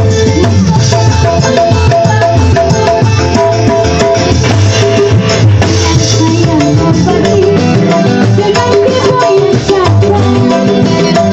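Loud live stage music with hand drums keeping a steady driving beat and shaker-like percussion.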